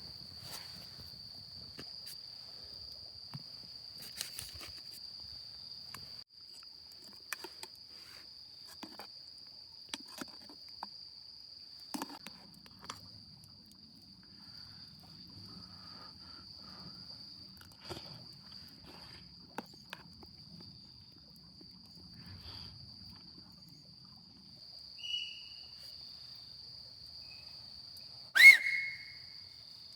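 An insect, cricket-like, trilling steadily on one high pitch, with scattered light clicks and knocks. Near the end, a loud, sharp call that falls in pitch.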